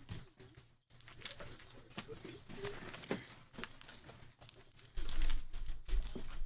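Crinkling and rustling handling noise with scattered sharp clicks. From about five seconds in, louder low thumps and rumbling join in, like knocks against the table or microphone.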